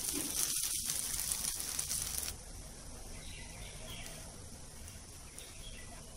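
Hot pan of egg and oil sizzling as cooked basmati rice is tipped in. The sizzle drops off suddenly about two seconds in, and a fainter hiss goes on.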